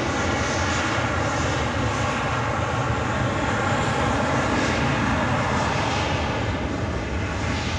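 Airbus A320-family airliner's twin jet engines at high power as it rolls down the runway for takeoff: a steady jet noise with a whining tone through it.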